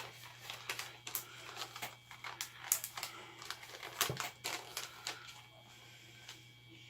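Handling noise from a soft-plastic fishing bait package: irregular crinkles and sharp clicks of plastic being handled, dying away about five seconds in.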